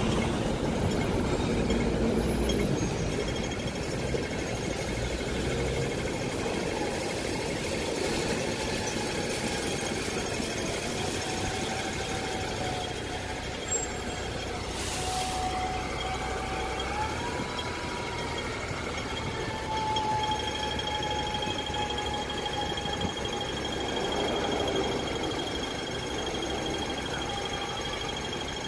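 Dennis double-decker bus heard from inside while under way: a steady low engine rumble with a drivetrain whine whose pitch dips and rises as speed changes.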